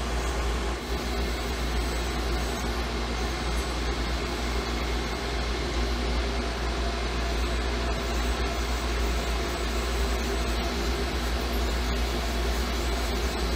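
Steady machine hum from the Syil X7 CNC mill while the table is jogged for a test-indicator sweep of the vise jaw: a low drone with a few steady tones above it, unchanging throughout.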